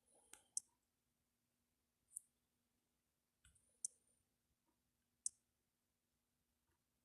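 Near silence with four faint, sharp clicks about a second and a half apart.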